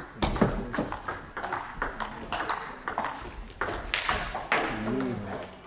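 Table tennis rally: the celluloid-type plastic ball clicking sharply off the rubber paddles and the table in quick, irregular succession, with the hall ringing after each hit.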